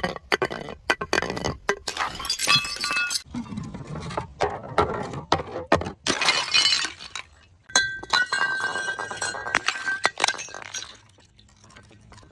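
Glass bottles breaking: a rapid string of sharp cracks and crunches, with shards clinking and ringing, thinning out near the end.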